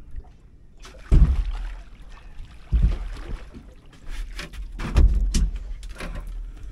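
Three heavy thumps and knocks on a small fishing boat, about a second in, near three seconds and about five seconds in, with scuffling and rustling between them, as a hooked tope is brought alongside and handled at the gunwale.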